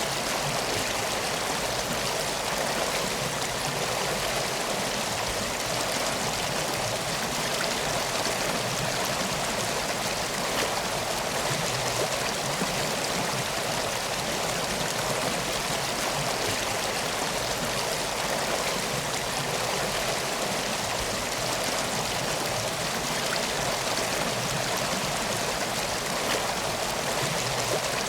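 River water flowing steadily, an even, unbroken rushing.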